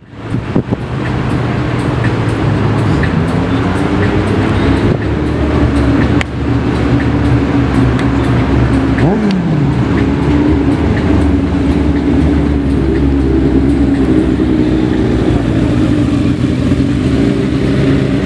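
A Ferrari's engine idling and running at low revs with a steady, even note as the car creeps along at walking pace. About nine seconds in a brief falling whine sweeps down over it.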